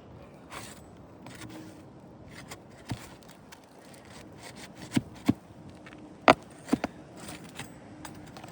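Scraping of asphalt shingles being worked up by hand and tool, with several sharp clicks and knocks as nails are lifted and pulled, the loudest knock about six seconds in.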